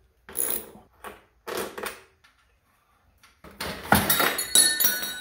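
A wrench working the hanger bolt on a KTM 690 SMC R's stock exhaust silencer, a few short scratchy clicks, then after a short pause a run of loud metal clunks and scrapes with some ringing as the silencer is pulled off its mount.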